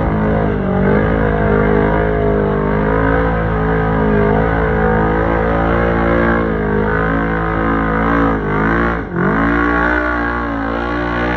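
Side-by-side UTV engine running hard under load as it wades through deep water. About nine seconds in, the engine note drops sharply and then climbs back up.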